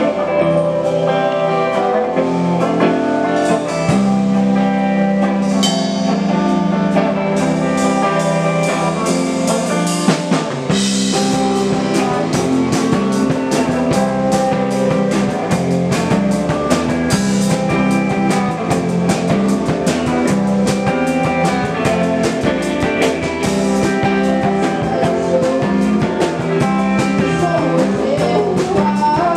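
Live band playing with electric guitars and a drum kit. A low sustained part comes in about four seconds in, and the drums get busy from about ten seconds in.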